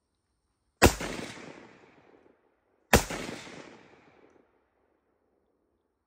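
Two single shots from a MAK-90 AK-pattern semi-automatic rifle, about two seconds apart, about a second and three seconds in. Each shot trails off in a long echo.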